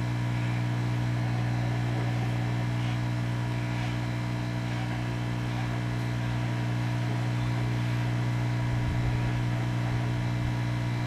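Steady electrical hum: a strong low tone with a stack of fainter steady tones above it, unchanging throughout.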